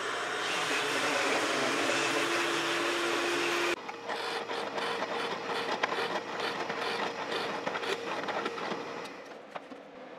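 Loud, steady rushing noise of shop power tools running. After a sudden cut, a drill press boring into wood: a steady motor hum with the crackle of the bit cutting and throwing chips, dying away near the end.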